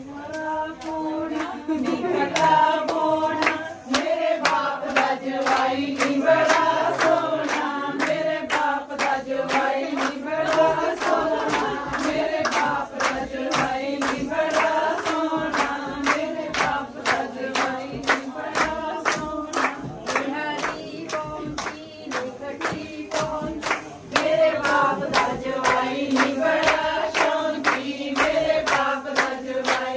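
A group of voices singing a folk song together in unison over a steady beat of sharp claps or hand-drum strokes, two or three a second.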